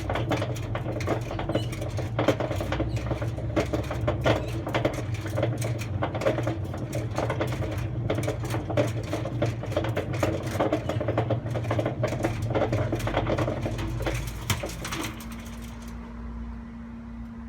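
Hotpoint Aquarius WF310 washing machine running, with a toy washing machine rattling and knocking rapidly about inside its drum over the low rumble of the machine's worn drum bearings. About fifteen seconds in the rattling stops and only a quieter steady hum is left.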